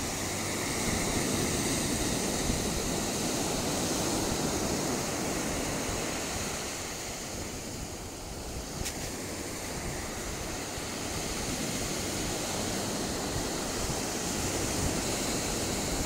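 Ocean surf: a steady rushing wash of small waves breaking along the shore, easing slightly around the middle.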